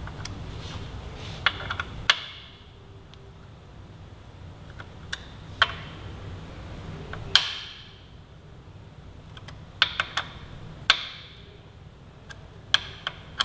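Sharp metallic tool clicks and clinks on the rearset bracket's mounting bolts as they are tightened and torqued. About a dozen come at irregular intervals, several with a brief ring.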